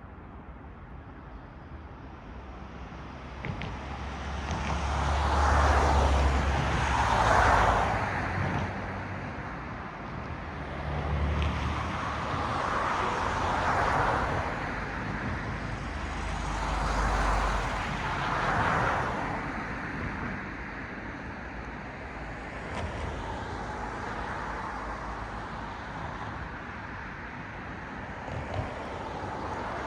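Cars passing one after another on a road, their tyre noise and engine rumble swelling and fading away. Three or four passes come close together in the first two-thirds, the loudest about six to eight seconds in, then a softer steady traffic hum.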